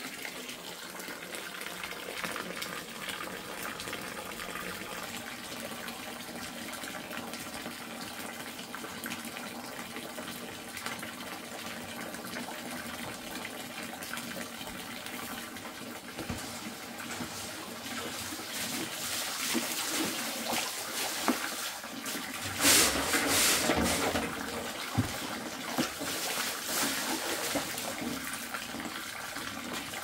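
Spring water running and splashing in a steady flow that grows louder in the second half. A brief louder burst of noise comes about two-thirds through, with a couple of knocks.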